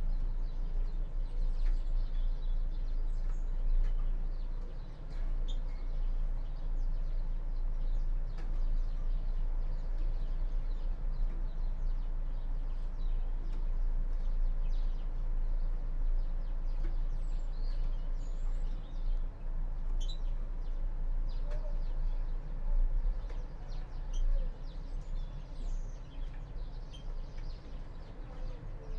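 European greenfinches in a cage giving scattered short chirps and high calls, some sliding in pitch, over a steady low hum.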